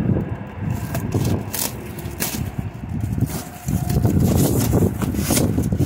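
Packing tape being ripped off and cardboard box flaps torn open by hand: rough scraping and crackling of cardboard, with several sharp tearing rips.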